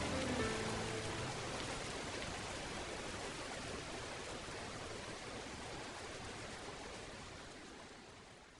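Steady rain falling, an even hiss that fades out gradually and dies away near the end.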